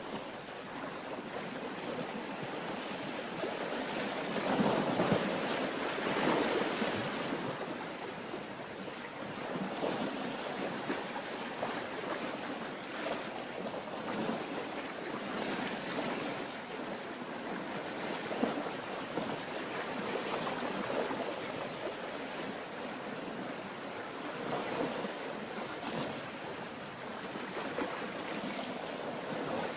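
Sea waves and wind: a steady rushing wash that swells and eases every few seconds.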